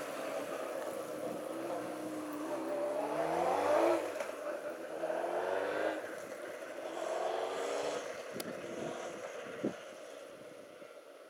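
Motorcycle engine accelerating away: its pitch climbs, drops at gear changes about four and six seconds in, climbs again, then fades as the bike gets farther off.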